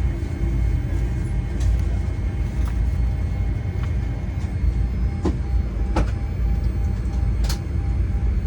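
Steady low rumble of an airliner cabin with its air conditioning running, a faint hum over it, and a few sharp clicks, the clearest about five, six and seven and a half seconds in.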